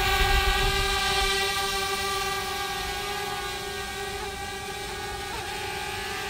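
DJI Mavic Air quadcopter's propellers whining, a steady chord of several high tones, growing fainter over the first few seconds as the drone climbs away. A low rumble dies out after about the first second.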